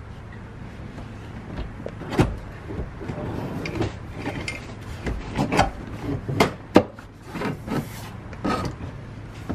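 Dodge Neon SRT-4 bucket seat being manoeuvred into a car through the door opening: a string of irregular knocks, bumps and scraping as it rubs and knocks against the door sill, floor and trim.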